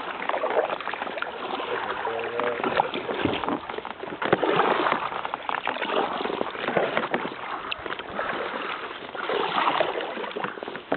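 Kayak paddles dipping into the river on each stroke, with splashing and dripping water alongside an inflatable kayak; the splashes come and go every couple of seconds.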